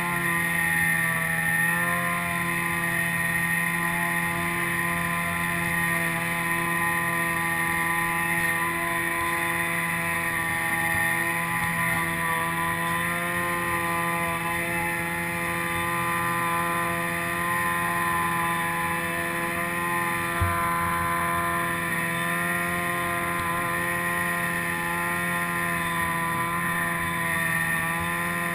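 Snowmobile engine running at steady cruising revs, its pitch holding nearly constant with only slight rises and dips. There is one sharp knock about two-thirds of the way through.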